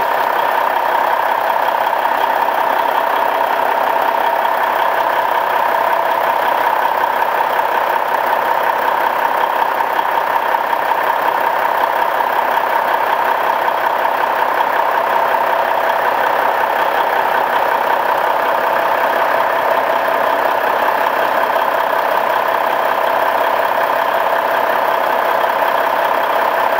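Cummins diesel engine of a Peterbilt truck, with about 600,000 miles on it, idling steadily and loud with no change in speed.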